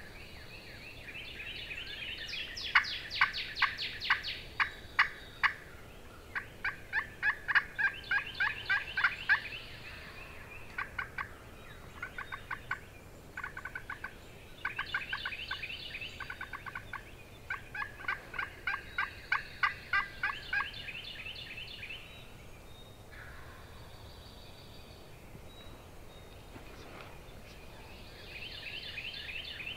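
Wild-turkey yelping: runs of rapid raspy notes, about five a second, lasting a few seconds each with short pauses between them. The calling goes quiet for several seconds near the end, then one more run begins.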